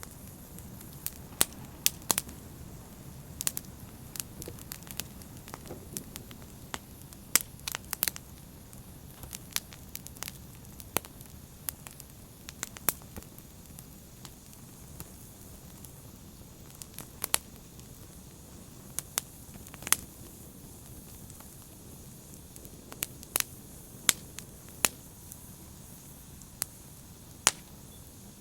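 Open fire burning and crackling: irregular sharp pops and snaps, a few of them loud, over a steady low rush of the flames.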